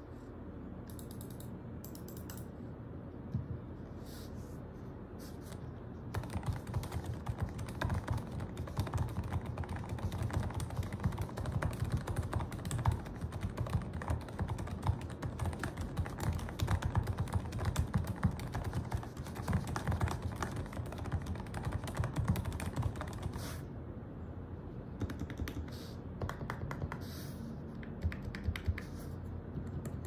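Mechanical keyboard with Kailh Night Orchid Pro switches being typed on: a few single clicks at first, then fast continuous typing from about six seconds in to past the middle. After a short pause come scattered keystrokes near the end.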